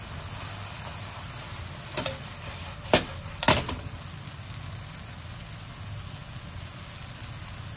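Shiitake mushrooms and scrambled egg sizzling in a pan as they are stir-fried with a plastic slotted turner. The turner knocks against the pan about two seconds in, then twice more, louder, around three and three and a half seconds in.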